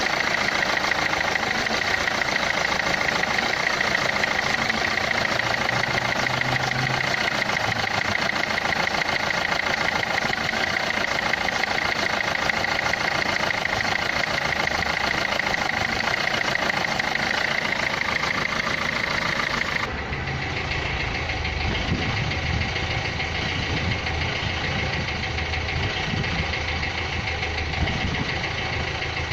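Renault Clio III's 1.5 dCi four-cylinder diesel idling with a steady, rhythmic clatter, a noise taken to come from the injectors. About twenty seconds in the sound turns duller, with more low rumble.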